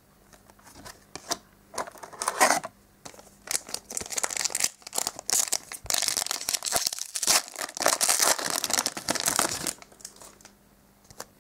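A few light clicks and rustles of cards being handled, then the crinkly wrapper of a My Little Pony trading card fun pack crinkling and tearing for about six seconds as it is opened, stopping shortly before the end.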